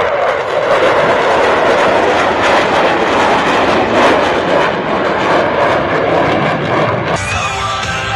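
Jet fighter flying a low demonstration pass, a loud, steady jet rush with music from the public address mixed in. The sound changes abruptly about seven seconds in.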